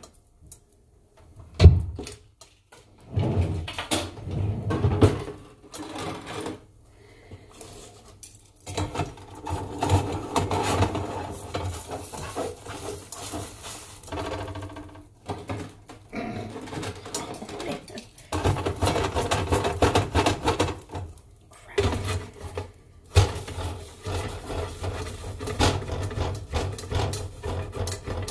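Metal spatula scraping and clicking against a stainless steel frying pan in repeated short strokes, with one sharp knock about two seconds in.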